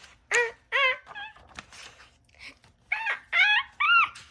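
A young girl's high-pitched voice making a string of short 'ah' cries, each rising then falling in pitch, in two groups: a few early on and four more quickly near the end, acting out the build-up to a sneeze.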